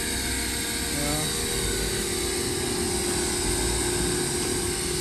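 Ryobi 1800 PSI corded electric pressure washer running steadily, its motor and pump giving a constant hum under the hiss of the foam cannon spraying soap.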